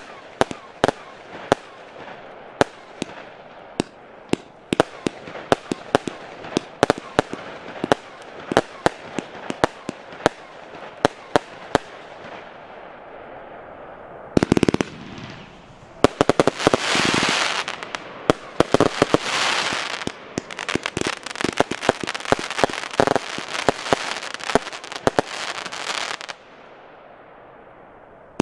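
Piromax PXC309 'Photon' 236-shot consumer fireworks battery (20/25/30 mm shots) firing: a quick run of sharp reports, two or three a second, that thins out. About halfway through a loud burst comes, then a long stretch of dense, rapid popping over a hiss that stops shortly before the end, when fresh reports begin.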